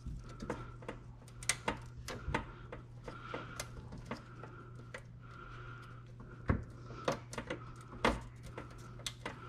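Irregular clicks and taps of plastic being handled as a dishwasher's door wiring harness connector is worked loose from its clips, with a few sharper knocks, over a low steady hum.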